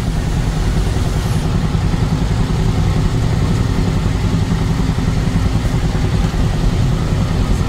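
Steady low rumble of a vehicle on the move: engine and road noise heard while driving.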